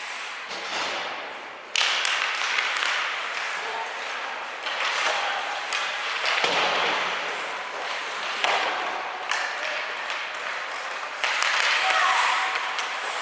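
Ice hockey game heard in an arena: spectators shouting and chattering, with sharp clacks of sticks on the puck and thuds of the puck and players against the boards. The crowd noise jumps up suddenly about two seconds in and again near the end.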